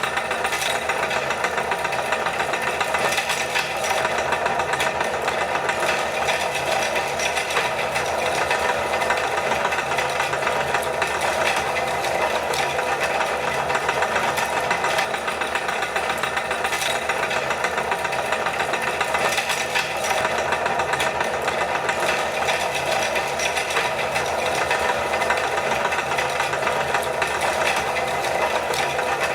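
Electric meat grinder running steadily, its motor and auger grinding milk candy chocolate.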